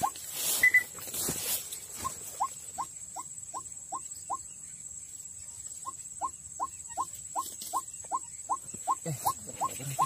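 White-breasted waterhen call: a steady series of short, rising 'kook' notes, about three a second, that stops for about a second and a half midway and then resumes. A brief loud rustling noise comes near the start.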